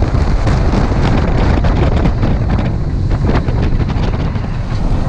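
Wind buffeting the camera microphone: a loud, steady, gusty low rumble.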